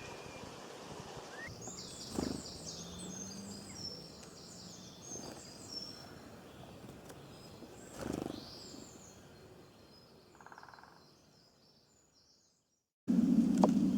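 Small birds chirping in quick high bursts over a low drawn-out animal call, with a few soft knocks. The chirping fades away, then a louder, different sound cuts in suddenly near the end.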